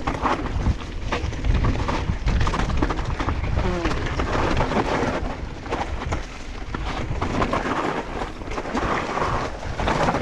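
Mountain bike riding down a rough dirt trail: tyres rolling and skidding over dirt and rocks, with the bike rattling and knocking on the bumps, over a deep rumble of wind on the microphone.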